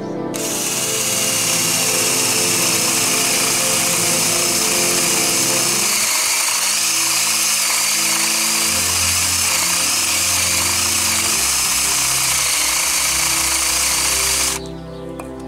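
An electric power tool runs steadily on wood for about fourteen seconds, starting just after the beginning and cutting off abruptly near the end, with background music under it.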